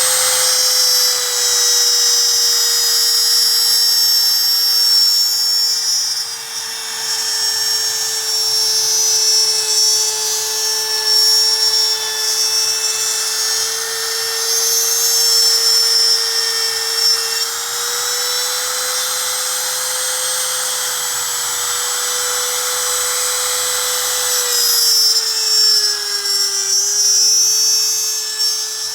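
High-speed power tool rigged as a plunge router, running at a steady high-pitched whine while it cuts wood. The pitch sags briefly near the end as the bit takes load.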